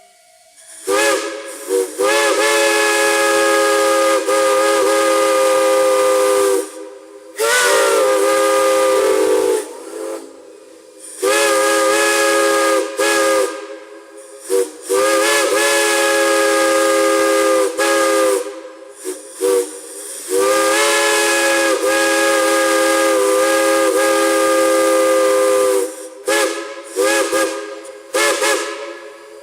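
Multi-chime steam whistle blown in a series of loud blasts: a chord of several notes over a rush of steam hiss, the pitch bending as the valve opens and closes. Four long blasts of a few seconds each alternate with shorter ones, and a quick run of short toots comes near the end.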